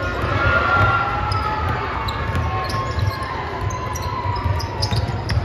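Basketball bouncing again and again on a gym floor as it is dribbled, with short squeaks and clicks around it.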